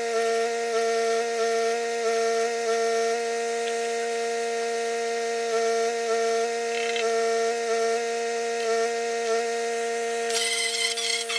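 Angle grinder running with a steady high whine. About ten seconds in, a harsh rasping hiss joins it, as of the disc biting into steel.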